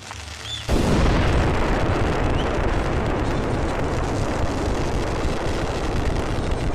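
Dense fireworks barrage: a little under a second in, a loud, continuous rumble and crackle of many overlapping bursts starts suddenly and keeps going.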